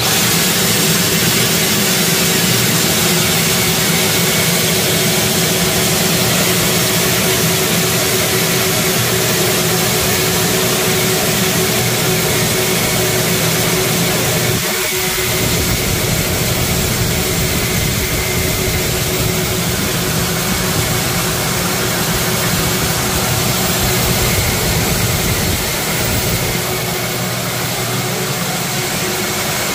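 A homemade air flow bench's bank of six vacuum-cleaner motors comes on abruptly and runs loud and steady: a whine with a rush of air as they pull air through the cold air intake under test. The level dips slightly about halfway through and again near the end.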